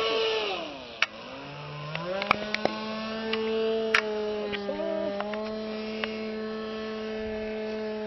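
Radio-controlled model airplane's motor running in flight: its pitch falls over the first second, climbs back up, then holds steady. A few sharp clicks sound over it.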